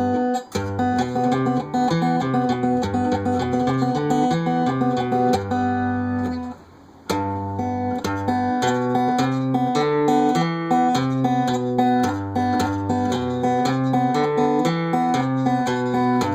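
Acoustic guitar fingerpicked in a country-blues style: a walking bass line with the open B string plucked between the bass notes. The playing breaks off briefly about six and a half seconds in, then picks up again.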